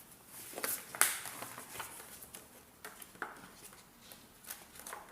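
Handling noise from a smartphone and gimbal being held and worked by hand: a few scattered light clicks and taps, the sharpest about a second in.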